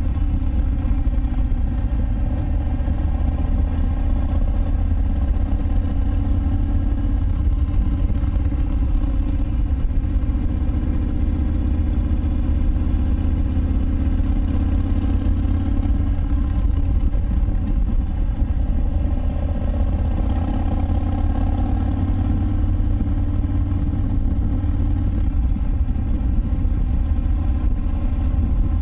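2019 Harley-Davidson Breakout 114's Milwaukee-Eight V-twin running through a Vance & Hines Big Radius exhaust, cruising at a steady speed. A low, steady exhaust note, recorded on board.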